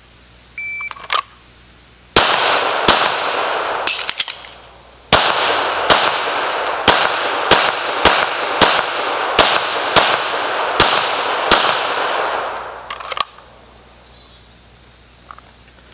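A short shot-timer beep, then about twelve 9mm pistol shots from a Sig Sauer P320: a pair, a pause of about two seconds, then ten more in quick succession roughly two thirds of a second apart, each followed by echo.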